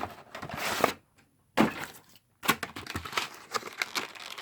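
Cardboard and plastic packaging being handled, rustling and scraping with light clicks and taps. It breaks off into silence twice near the middle.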